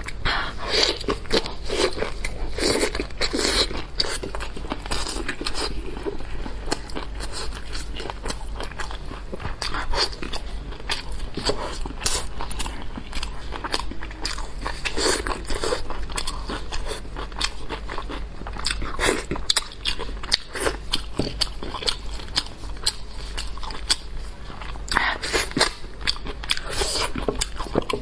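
Close-miked eating of braised pork knuckle and kimchi: irregular wet chewing, biting and crunching, with smacking and the crackle of gloved hands pulling the meat apart. A steady low hum runs underneath.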